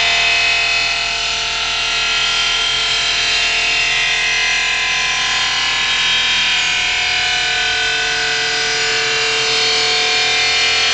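OMAG five-axis CNC machining centre's spindle driving its tool through marble, roughing out a vase: a steady, loud grinding with several held whining tones.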